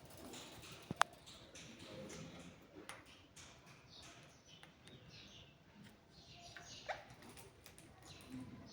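A parrot making soft scratchy chatter and small sounds, with a sharp click about a second in and a short squeak near seven seconds.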